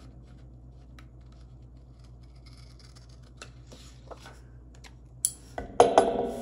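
Small scissors snipping paper in a few faint, short cuts. Near the end come a couple of sharp, louder knocks as the page is set down on a wooden table.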